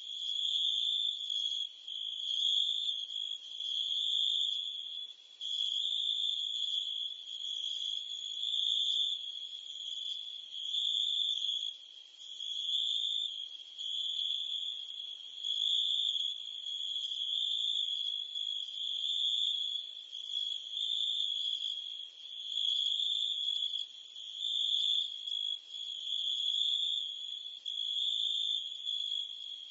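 Crickets and cicadas chirping in one unbroken high-pitched trill that swells and dips every second or two.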